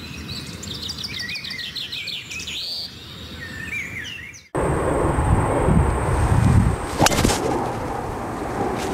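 Birds singing, a run of quick chirps and trills for the first four and a half seconds. Then wind on the microphone, and a driver striking a golf ball off the tee with one sharp crack about seven seconds in.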